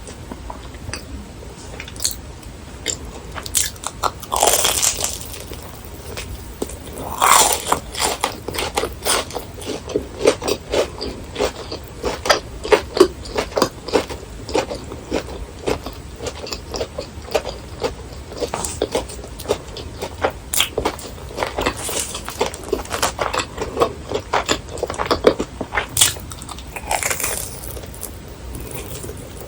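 Close-miked crunchy bites into crispy fried food, followed by long stretches of rapid crunchy chewing.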